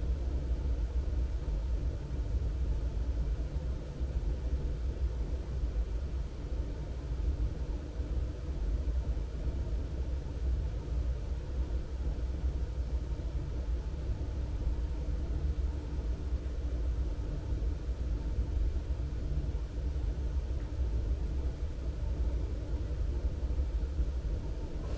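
A steady low outdoor rumble with a faint hum above it. It runs on unbroken, with no distinct events.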